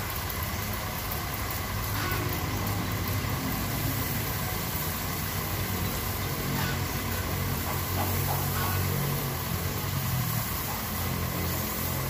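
A machine running steadily with a low hum and a faint steady high whine.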